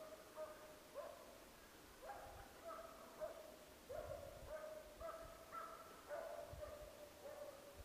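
Halden hound baying on a fox's track in full cry. It gives a quick, steady run of drawn-out bays, about two a second, heard faint and far off.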